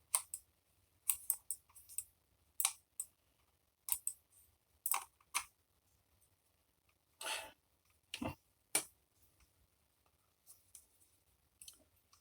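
Small plastic clicks, taps and scrapes from a cheap USB computer mouse being handled and its plastic case opened, with one longer scrape about seven seconds in.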